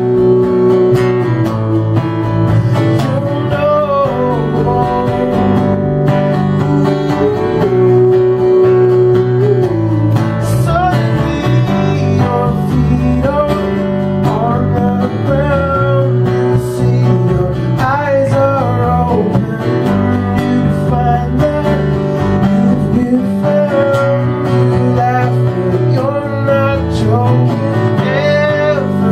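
A man singing with his own strummed acoustic guitar: a solo folk/country song performed live.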